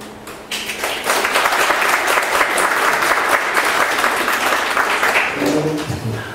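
Audience applauding; the clapping starts about half a second in and dies away about five seconds in, followed by a few voices.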